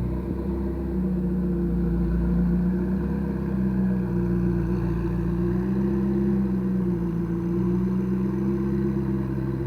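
McLaren 650S Spyder's twin-turbo V8 idling steadily after a cold start, its pitch wavering only slightly.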